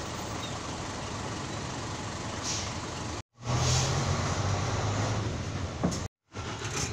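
City bus idling with its pneumatic front door working: a short hiss of air about two and a half seconds in, then, after a brief dropout, a second bus with a louder hiss of air over a stronger engine hum and a click near the end.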